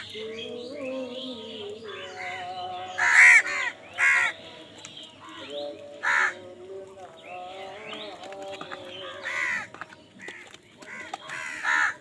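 A flock of house crows calling while feeding: about five loud caws stand out, spread through the stretch, over a continuous din of quieter bird calls.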